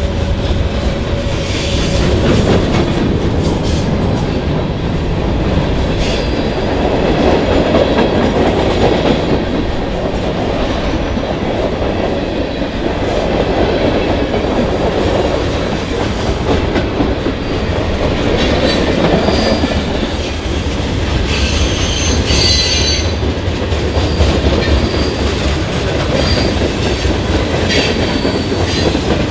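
CN freight train cars rolling past: a steady rumble of steel wheels on rail with clickety-clack over the joints. Brief high-pitched wheel squeals come and go in the second half.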